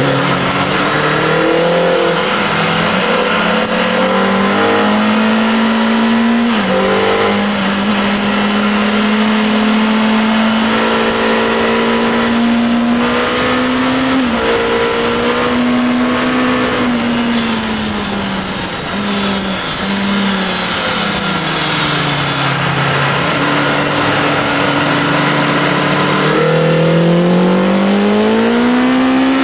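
Onboard sound of a Honda CBR Fireblade's inline-four engine at speed, with heavy wind rush on the microphone. The revs hold fairly steady, fall away for a few seconds past the middle, then climb again as it accelerates near the end.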